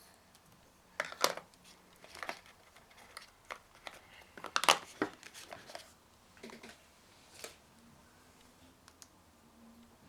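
Packaging being handled by hand: intermittent rustling and crinkling with scattered clicks and knocks. The loudest cluster comes about halfway through.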